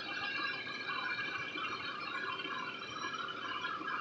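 Engine coolant trickling steadily out of the car's radiator as it is drained to lower the coolant level.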